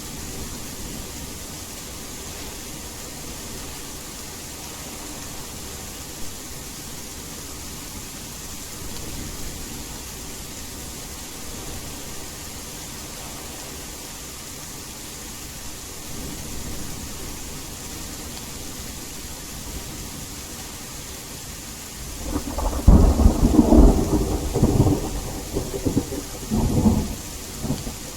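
Steady rain falling, with a loud peal of thunder breaking about 22 seconds in and rumbling for around five seconds before fading.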